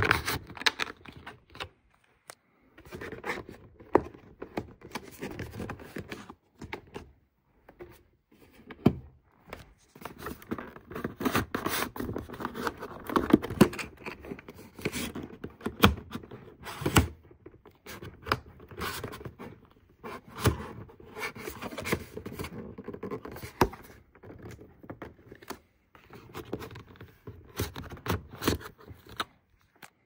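Plastic pry cards scraping and grinding in the seam of an LG UltraFine 5K monitor's back cover, with irregular sharp clicks and knocks, as the hooks around its edge are worked loose.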